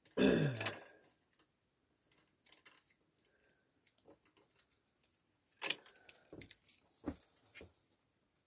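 Small kindling fire of wood shavings and birch bark burning in a wood stove, with faint scattered crackles. A brief low voice sound falling in pitch comes right at the start, and from about halfway through there is a sharp click followed by a cluster of knocks and clicks as a hand works at the stove opening.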